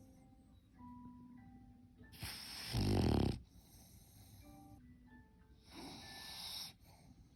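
A sleeping French bulldog snoring: two long snoring breaths, the first about two seconds in and the louder and deeper of the two, the second near the end and more hissy. Quiet background music of single held notes plays underneath.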